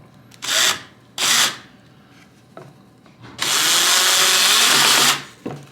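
Power drill-driver driving a screw into the shelf's wood: two short bursts, then a steady run of nearly two seconds in the second half.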